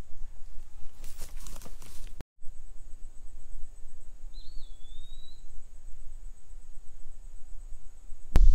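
Outdoor ambience: a low rumble of wind on the microphone, with rustling for the first two seconds. After a brief cut, a steady high insect drone runs on, with a single bird call about four seconds in.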